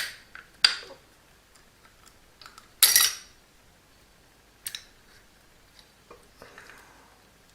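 Small metal parts of a door closer mechanism clinking and knocking as they are handled during reassembly: a few separate sharp clinks, the loudest about three seconds in.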